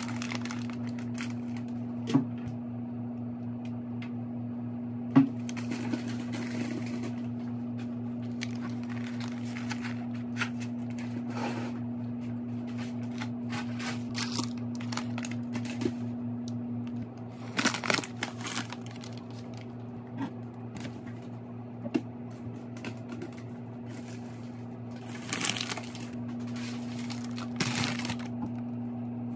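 Groceries being unpacked onto a kitchen counter: plastic packaging crinkling in short bursts and sharp knocks as items are set down, the two loudest about two and five seconds in, over a steady low hum.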